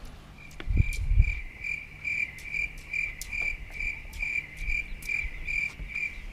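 A cricket chirping steadily, about two even, high chirps a second. A few low thumps, most likely wind or handling on the microphone, come about a second in.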